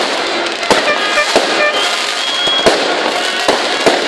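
Aerial fireworks bursting overhead: a rapid, irregular series of sharp bangs, about a dozen in four seconds, over a continuous noisy din.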